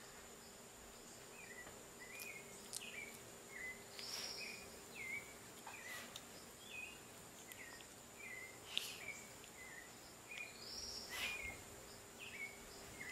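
A steady series of short, high chirps from a small animal, about two a second, with a couple of louder, higher squeaks about four and eleven seconds in and a few faint clicks.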